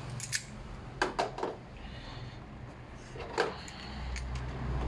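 A few sharp metallic clicks and clacks from steel locking pliers being handled and brought up to a spring hose clamp on a radiator hose: one near the start, a quick cluster about a second in, and another about three and a half seconds in. A low rumble builds near the end.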